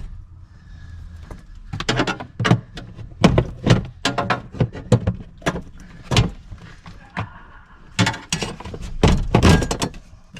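Plastic battery cover and its side latches being worked loose by hand: a string of irregular clicks, knocks and thunks.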